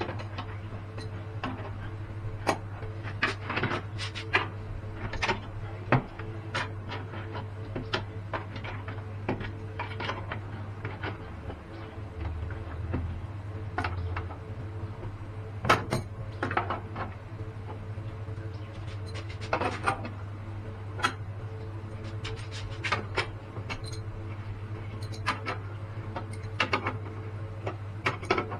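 Irregular metallic clinks and knocks, as of metal parts and tools being handled, over a steady low hum.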